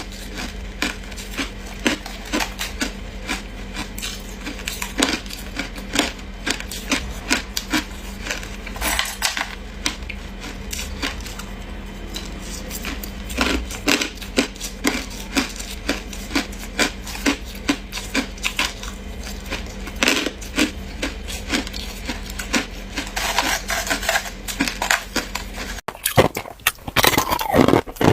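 Close-miked crunching of ice being bitten and chewed, a sharp crack roughly every half second over a steady low hum. Near the end it cuts to louder, denser crunching.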